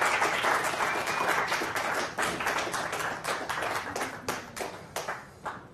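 Audience applauding: dense clapping that thins to scattered single claps and dies away toward the end.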